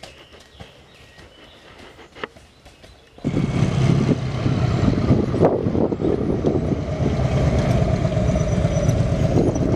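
Faint hoofbeats of a Belgian draft horse walking on a woodland trail. About three seconds in, a loud steady engine drone starts suddenly and takes over: a motorcycle trike running as it rides close past.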